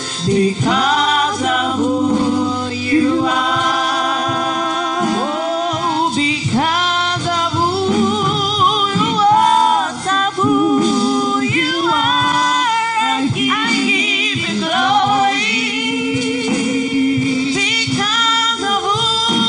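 A woman singing a gospel worship song into a microphone, holding long notes that waver and bend in pitch.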